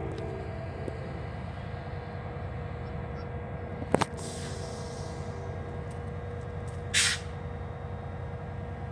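New Jersey Transit diesel passenger locomotive rumbling steadily with a constant hum as it moves its train slowly through the yard. A sharp click about four seconds in, and a short loud hiss about seven seconds in.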